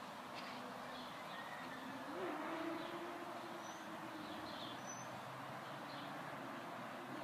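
Outdoor ambience of faint, scattered small-bird chirps over a steady background noise. A low drone swells briefly about two seconds in.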